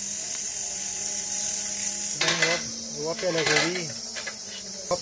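Steady high-pitched insect chirring throughout, with a person's voice heard briefly about two and three seconds in and a few light knocks.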